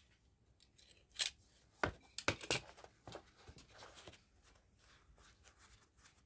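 Scissors snipping the stitching thread on a sneaker, a few short sharp clicks between about one and three seconds in, with faint handling of the shoe around them.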